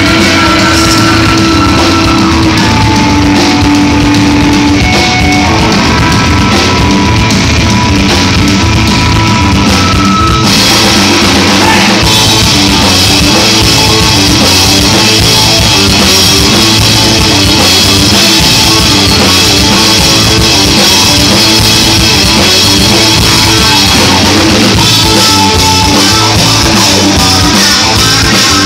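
Live rock band playing loud: electric guitars, bass and drum kit together. About ten seconds in, the band's sound fills out and gets brighter in the top end.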